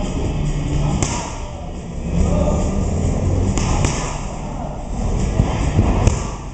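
Muay Thai pad work: boxing-gloved punches and a knee landing on Thai pads held by a trainer, a few sharp smacks spaced a couple of seconds apart.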